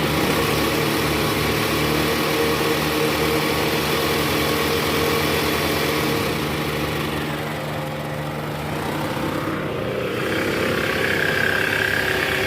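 Toyota Alphard's 2AZ-FE 2.4-litre four-cylinder engine running steadily at a raised idle of about 1100 rpm in reverse with the AC on, without the growl and squeal from the belt tensioner: the tensioner with the weak spring has just been replaced. The engine eases slightly about eight seconds in and picks up again, and a thin high whine comes in near the end.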